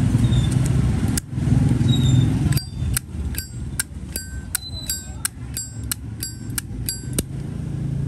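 Brass Zippo lighter's lid flicked open and snapped shut over and over: a dozen or so sharp metallic clicks, each with a short bright ring, about two to three a second through the second half. A low rumble like street traffic is loudest in the first couple of seconds.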